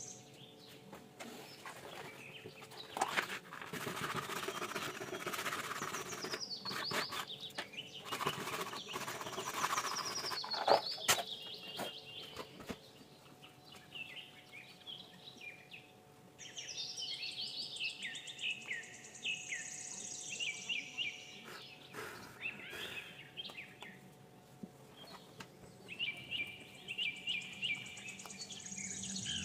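Hands handling PVC pipe and plastic parts: rustling and scraping with a few sharp clicks, the sharpest about eleven seconds in. From about halfway on, birds chirp in repeated quick falling notes.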